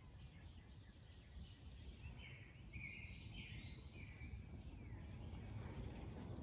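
Faint outdoor woodland ambience: a few short, distant bird chirps, mostly in the middle stretch, over a low, steady rumble.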